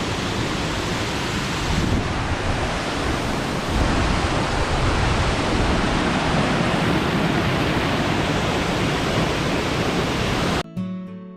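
Steady rush of a tall waterfall, a dense, even noise with no let-up. It cuts off abruptly near the end, replaced by strummed acoustic guitar music.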